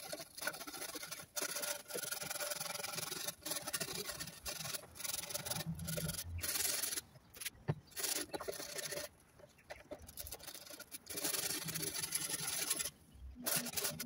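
A stiff-bristle cleaning brush scrubs carved wood, a rough back-and-forth rubbing in runs broken by a few brief pauses. It is working loose the old finish softened by paint stripper.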